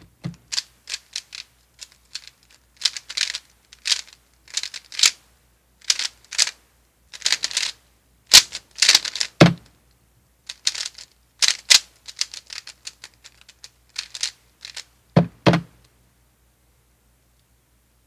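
3x3 speed cube being turned very fast by hand: quick bursts of plastic clicking and clacking with short pauses between them. A few soft thumps come in among them, one about halfway through and a pair near the end of the turning.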